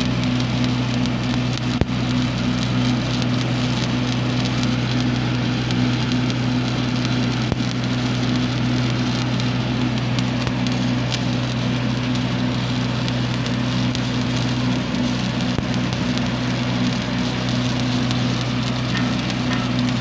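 Shielded metal arc (stick) welding arc burning steadily as the electrode runs a bead, a continuous crackle over a steady low hum, with one sharper pop about two seconds in.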